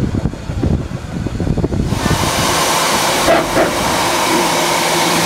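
Low, uneven rumble of a railway coach running along the line. About two seconds in it cuts to a small steam tank engine standing at the platform, with a loud, steady hiss of escaping steam and a faint hum underneath.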